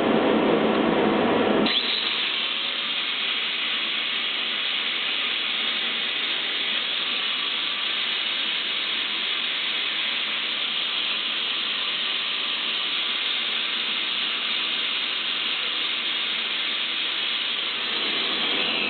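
A power sander working on stone, a steady hissing grind; a bit under two seconds in, the lower, fuller part of the noise drops away and a thinner, high hiss runs on.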